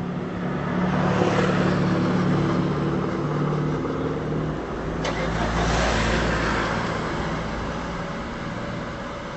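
Motor vehicles passing on the road. An engine hum swells about a second in and fades, then a deeper rumble from a second vehicle passes a little past the middle, with a short click just before it.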